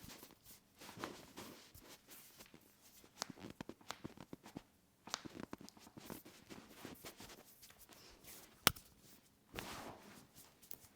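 Soft rustling and shuffling of clothing and bodies being moved, with scattered light taps, and one sharp click near the end.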